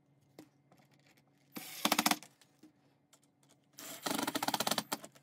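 Ryobi cordless drill driving screws into pine boards, in two short runs, the second longer, each with a fast even pulsing. Faint handling clicks come between them.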